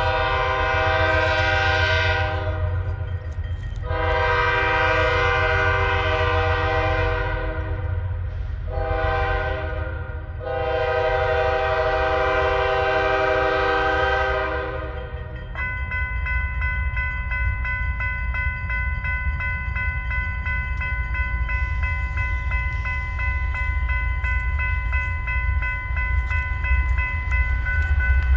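Diesel freight locomotive's air horn blowing the grade-crossing signal: two long blasts, a short one, then a long one. The horn then stops and the locomotive's bell rings steadily over the low rumble of its diesel engine, which grows louder near the end as it approaches.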